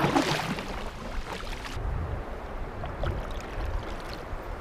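Water splashing and trickling around a kayak's hull and paddle. About two seconds in the sound changes abruptly to a low rumble of wind on the microphone with faint water clicks.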